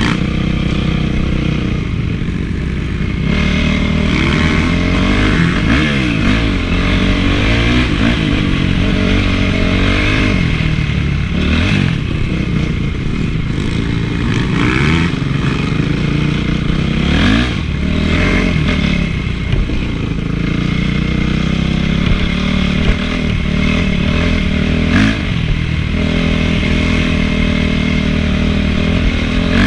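Honda CRF450's single-cylinder four-stroke engine being ridden hard, revving up and dropping back again and again as the throttle opens and closes. A few short knocks come through, around the middle and near the end.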